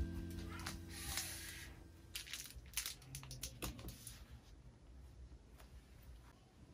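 A held piano chord from background music fades out over the first two seconds. Then come soft rustling and crinkling of packaging, with scattered light clicks and taps from handling.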